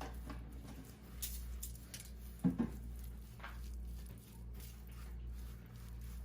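Spoon stirring a thick tomato-paste and spice marinade with oil in a bowl: soft squelching and scraping strokes, with a sharper knock about two and a half seconds in, over a steady low hum.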